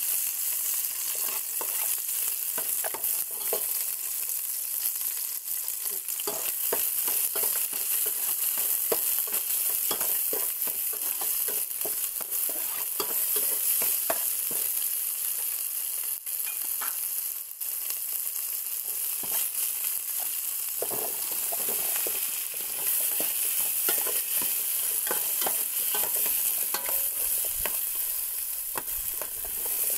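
Garlic and lemongrass frying in an aluminium stockpot with a steady sizzle, stirred with a metal ladle that scrapes and clinks against the pot again and again.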